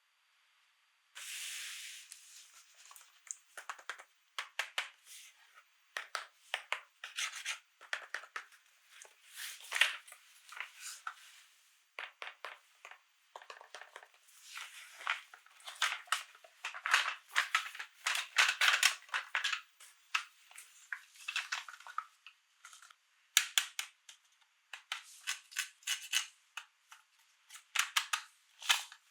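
Close-miked unboxing sounds: toy packaging and small plastic toy parts being handled, giving irregular crinkling, rustling and clicking with short pauses between bursts.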